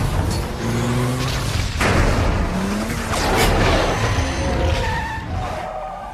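Action-film car-chase sound effects: a car engine running hard with tyres skidding, broken by sharp impacts about two and three and a half seconds in.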